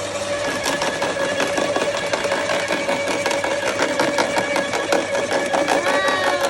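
Bosch AXT 25 TC electric wood chipper running with a steady motor hum while its slow-turning cutting drum crushes a thick branch, giving a continual crackling and snapping of the wood.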